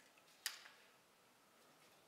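A single faint, sharp click about half a second in, otherwise near silence.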